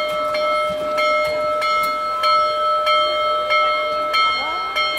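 Union Pacific Big Boy 4014 steam locomotive's bell ringing steadily, struck about twice a second, each stroke ringing on over the next.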